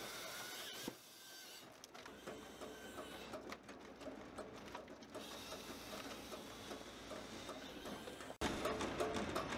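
Tractor-driven firewood processor running, with mechanical clatter and a few sharp knocks of split wood. The sound jumps louder near the end.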